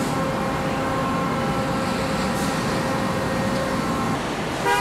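Steady factory-floor machinery noise with a faint steady whine in it, and near the end a short car horn toot.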